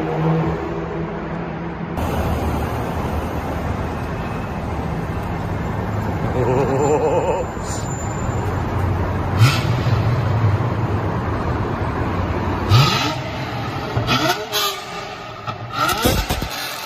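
Toyota Century's V12 engine and aftermarket exhaust running while the car drives, with several quick rises in revs in the second half.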